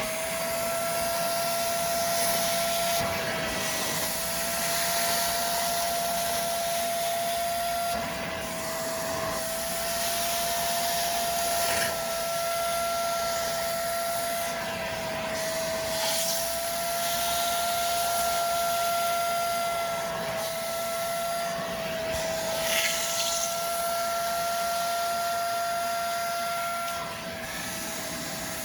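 Hoover Spotless portable carpet and upholstery cleaner's suction motor running with a steady high whine, its pitch dipping slightly now and then, as it sucks water out of car-seat fabric. Short bursts of hiss come every few seconds.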